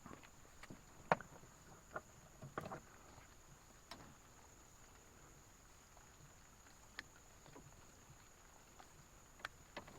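Faint scattered splashes and small knocks of water and handling, about a second apart, the sharpest about a second in, over a steady high-pitched insect drone.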